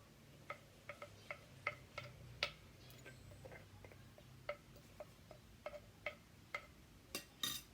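Light, irregular taps and clinks of a serving utensil against a plate as salad is scooped onto it, about two or three a second. A louder, brief scrape comes near the end.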